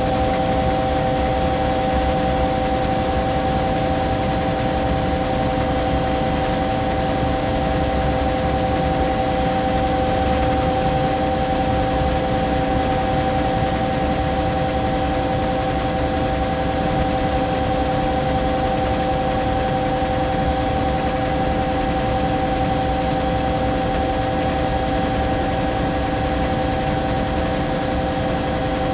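Cabin interior of a Bell 212 twin-turbine helicopter in steady cruise: a constant low rumble with several steady whining tones over it, unchanging throughout.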